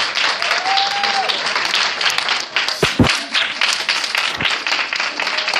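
A congregation applauding steadily after a spoken-word performance, with one high held call about a second in and a couple of brief bumps about three seconds in.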